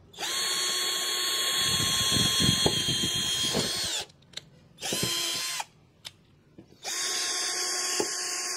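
TOTAL cordless drill boring a twist bit through a wooden board, the motor running with a steady whine. The first run lasts about four seconds and winds down as the bit breaks through, with grinding from the bit in the wood. A short burst follows about five seconds in, then another run of about three seconds.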